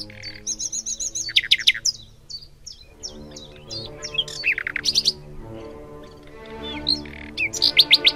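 Birds chirping in quick clusters of short downward-sweeping notes, loudest about a second and a half in and again near the end, over soft background music with held chords.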